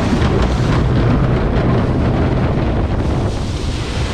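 Log flume boat plunging down its drop and splashing into the water, with wind rushing loudly over the microphone and water churning.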